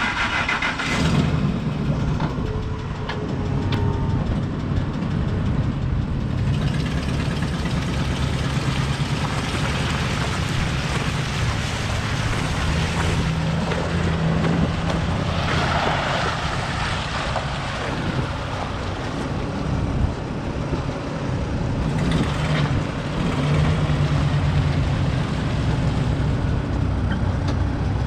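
Ford F250 pickup's engine idling steadily.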